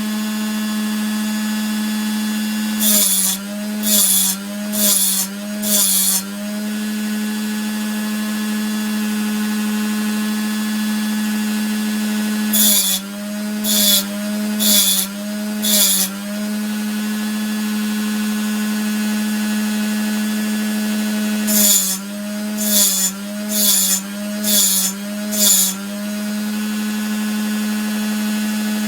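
Dremel rotary tool with a 2-inch diamond-coated disc running steadily while the tops of a circular saw blade's teeth are ground. Three times it makes four short hissing grinding strokes about a second apart, the motor's pitch dipping under load at each one.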